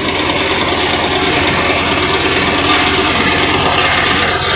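An engine or similar machine running steadily: a dense, even mechanical noise over a low hum.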